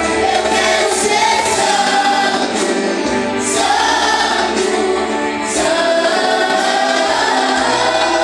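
A worship group singing together in chorus over steady instrumental accompaniment, a gospel worship song.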